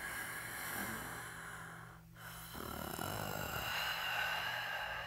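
Raspy, heavy breathing used as a sound effect at the end of a metal track: one long breath to about two seconds in, then a brief break and a second, louder breath.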